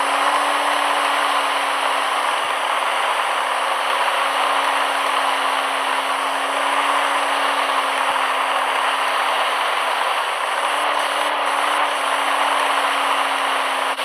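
Mahindra Thar's engine running steadily, with rattling and a steady hum.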